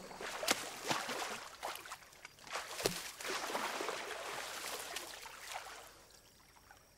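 Water splashing and sloshing as a person wades and moves about in a shallow stream, with a few sharp thumps, the loudest about three seconds in. The sound fades off toward the end.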